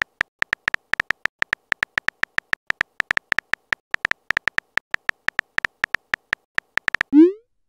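Texting app's keyboard sound effect: a fast run of short, even key clicks, about six a second, one per typed letter. Near the end a short rising swoop, the message-send sound.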